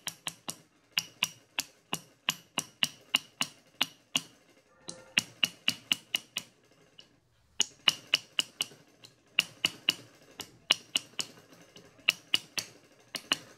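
Light, rapid taps of a soft-faced mallet driving a dovetail piece into its seat on a metal lathe slotter body, a few taps a second in runs broken by short pauses.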